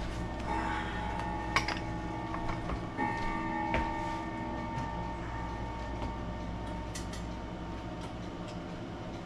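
A few sharp metallic clicks and knocks as brass grandfather-clock weights are handled and hung, over a steady low hum and several sustained high ringing tones.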